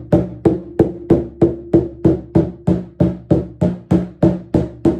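Large hand drum with a painted head struck with a soft mallet, evenly at about three strokes a second. Every stroke gives the same low pitch, the mark of an unpitched percussion instrument.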